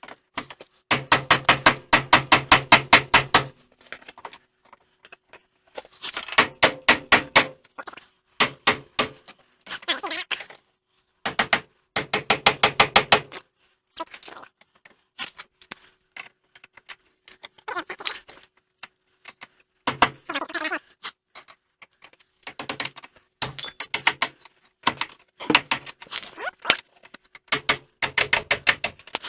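Repeated bursts of rapid metal-on-metal hammering on a seized wheel hub assembly to drive it loose, each run of quick blows lasting one to two and a half seconds with short pauses between.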